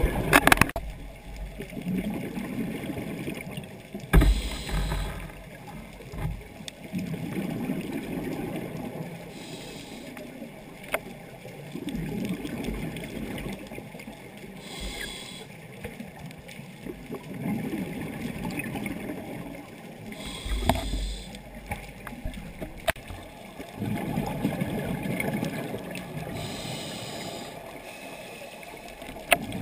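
A scuba diver breathing through a regulator underwater. Each breath gives a short hiss followed by a stretch of bubbling rumble, repeating about every five to six seconds. There are a few sharp knocks near the start.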